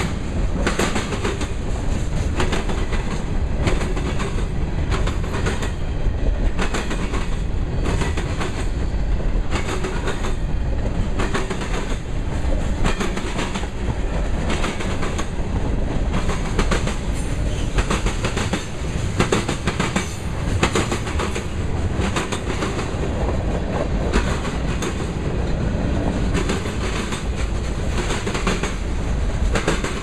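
Freight cars of a mixed manifest train rolling past close by: a steady rumble of steel wheels on rail with a repeated clickety-clack as the wheel trucks pass.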